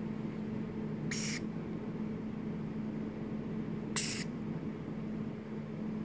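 Two short, shrill squawks from young varied lorikeets, about a second in and again about four seconds in, over a steady low hum.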